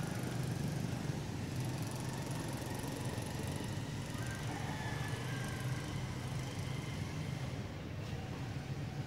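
Steady low rumble of engine noise, even in level throughout.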